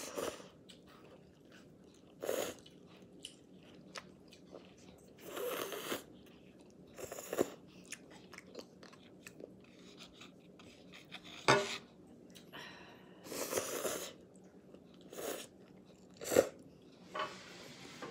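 Instant ramen noodles being eaten close to the microphone: short bursts of slurping and chewing every second or two, with a few sharp clicks.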